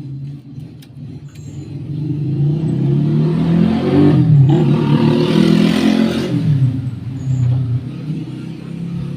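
A motor vehicle passing close by: the engine note swells and its pitch shifts up then down, loudest about halfway through, then fades.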